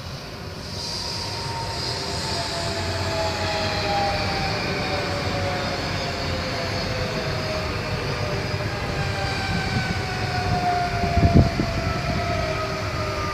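Regional passenger train running past with a low rumble of wheels on rail and a whine that falls slowly in pitch. A single sharp knock comes near the end.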